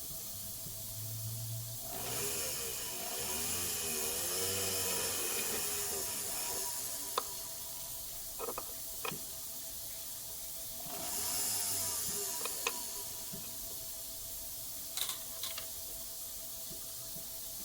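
Two hissing spray bursts, the first about four seconds long and the second shorter, with a few light clicks between them and a faint steady hum throughout.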